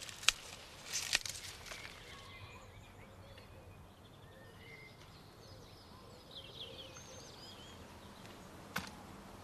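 Brussels sprouts being snapped off the stalk by hand: a few sharp snaps in the first couple of seconds and one more near the end. Faint birds chirp in between.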